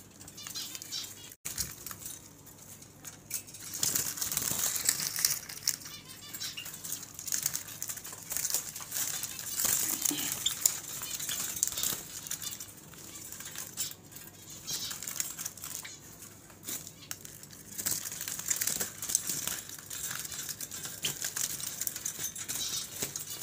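Java sparrows flapping their wings in a wire cage, panicked as a hand reaches in to catch one, in irregular bursts of wingbeats.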